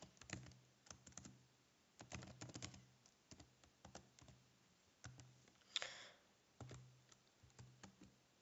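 Faint typing on a computer keyboard: irregular runs of keystroke clicks with short pauses between them, with a short hiss about six seconds in.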